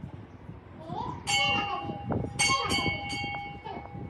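Temple bell struck about four times, starting about a second in with the last three closer together, each stroke ringing on with several clear high tones, over low voices.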